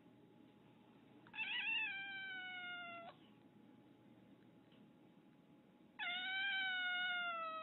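Domestic cat meowing: two long, drawn-out meows a few seconds apart, each sliding slowly down in pitch, the first wavering at its start.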